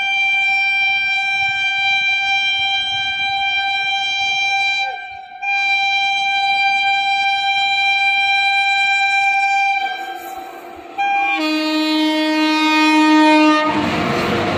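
Indian Railways WAP-7 electric locomotive sounding its horn: a long high-pitched blast with a brief break about five seconds in, then a lower-pitched blast. Near the end comes the loud noise of the locomotive and coaches passing close by.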